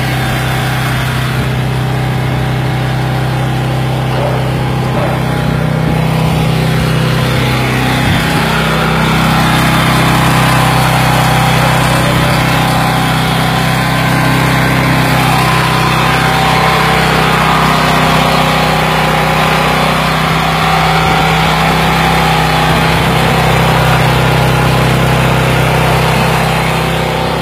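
KOVO EW240G engine-driven welding generator's petrol engine running steadily. It rises slightly in pitch and loudness about eight seconds in.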